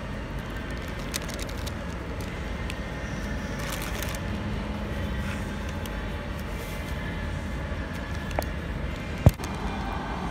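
Steady background hum of a fast-food restaurant dining room, with a few small clicks and one sharp click or knock about nine seconds in.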